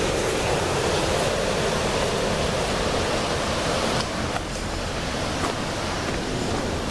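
Steady rushing noise with no distinct events, dropping slightly in level about four seconds in.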